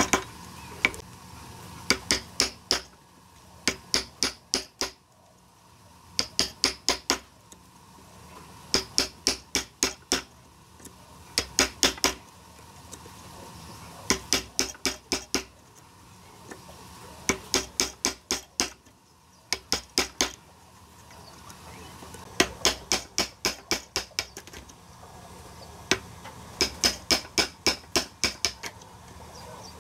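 Hammer striking a chisel as it chops a mortise into a clamped hardwood block: bursts of four to eight quick blows every two to three seconds, each with a short metallic ring.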